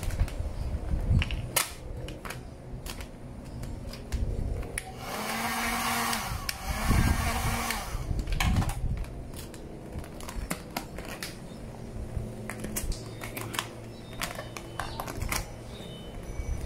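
A hot-air blower runs for about three seconds in the middle, heating vinyl wrap film so that it can be stretched over a curved motorcycle seat cowl. Around it there are scattered crackles and clicks from the plastic film being handled and pressed down.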